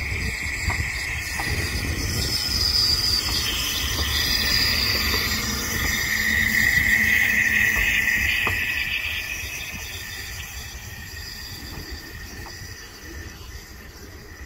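Narrow-gauge steam locomotive running slowly past with its steam hissing. The hiss grows loudest about halfway through, then fades as the engine draws away.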